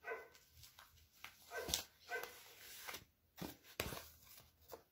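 A dog faintly whimpering and yipping in short, high-pitched calls, several times, with a few sharp clicks and knocks from a picture card being handled.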